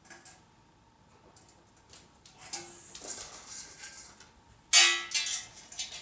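A dog's metal food dish clattering and scraping as the dog picks it up and carries it. There is a rattle about halfway in, then one loud ringing clang near the end, followed by a few lighter knocks.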